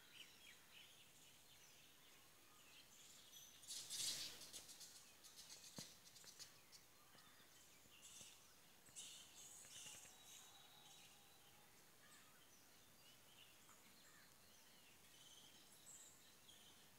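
Faint outdoor ambience with scattered faint bird chirps. A brief burst of noise comes about four seconds in.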